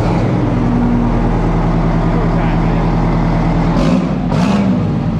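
Detroit diesel engine of a Kenworth K-Whopper cabover race truck running at a steady idle, with a short rise in pitch about four seconds in.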